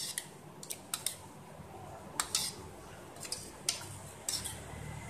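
A metal spoon stirring thick yogurt raita in a stainless steel bowl, clinking against the bowl in scattered, irregular light ticks.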